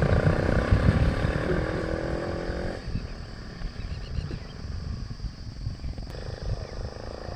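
Exhaust of a TVS two-wheeler running through a homemade jugaad silencer, a loud low pulsing note. It falls away sharply about three seconds in, leaving uneven low exhaust pulses.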